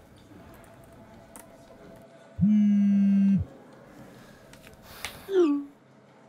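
A mobile phone vibrating with a steady buzz for about a second, then a short falling message alert tone near the end as a text comes in, with a few light laptop keyboard clicks in between.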